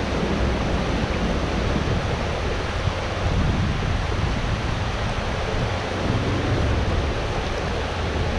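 Steady rushing of water pouring through a spillway.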